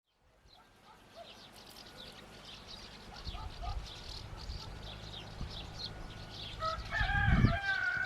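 Small birds chirping in quick, falling notes throughout, and near the end a rooster crows once. A low rumble comes under the crow, the loudest moment of the stretch.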